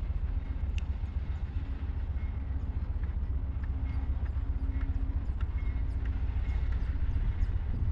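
Steady low outdoor rumble, with a faint hum that comes and goes and scattered faint clicks.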